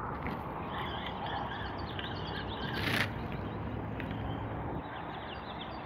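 Lakeside ambience: small birds chirping in quick short notes, and a frog croaking low, with one brief sharp knock about three seconds in.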